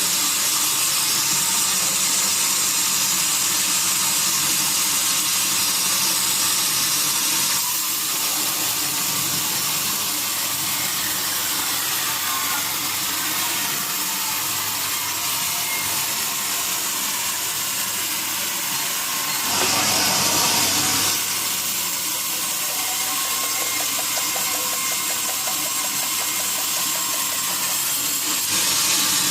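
Sawmill saw running steadily while sawing teak wood: a loud, hissing machine noise over a steady hum. The tone changes about a quarter of the way in, and it gets louder for a second or two about two-thirds of the way through.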